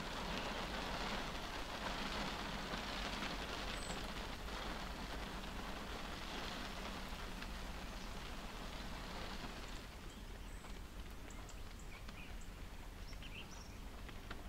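Rain falling on a parked car's roof and windscreen, heard from inside the car: a steady, even fall of drops that eases off about ten seconds in.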